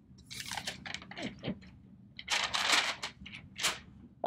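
Paper rustling as sheets are handled and shuffled, in several short crinkly bursts with a longer, louder stretch near the middle.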